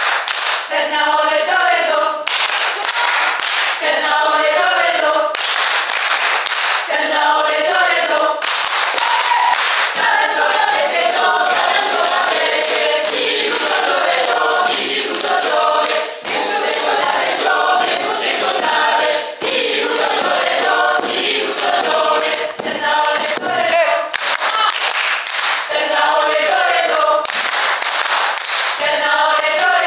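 Mixed-voice choir of men and women singing an unaccompanied song in rhythm, with sharp hand claps throughout.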